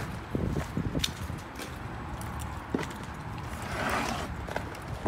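Footsteps on wet, slushy pavement and light knocks of wooden pallets being handled, with a short scraping rasp about four seconds in as a pallet is lifted off the stack.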